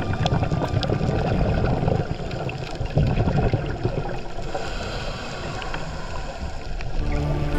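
Underwater noise picked up by a camera on a scuba dive: a low rumble with bubbling and crackle, likely from divers' exhaled regulator bubbles, with music faintly underneath that comes back clearly near the end.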